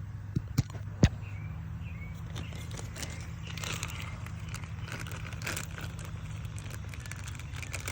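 Handling noise from fitting plastic pressure-washer parts and screws: a few sharp clicks in the first second, the loudest about a second in, then faint scattered ticks and rustles, over a steady low hum.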